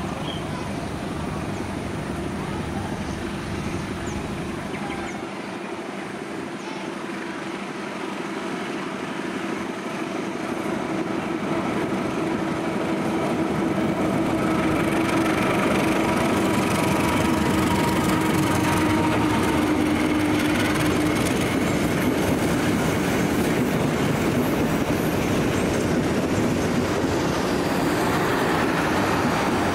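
Diesel-electric locomotive running as it hauls a passenger train past, with its engine note held steady. The train grows louder in the second half, where the coaches' wheels roll and clack over the rail joints.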